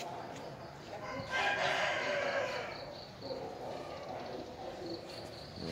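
A rooster crowing once, starting about a second in and lasting about two seconds.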